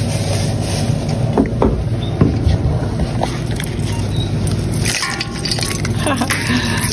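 Steady low hum of a store checkout, with a few light knocks in the first couple of seconds and a brief rustle about five seconds in.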